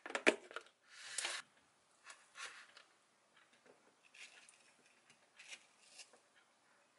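A plastic lid clicks and pulls off a tub of thick Greek yogurt about a second in. Then a small wooden spoon scoops the yogurt into a glass bowl of apple pieces with a few soft scrapes.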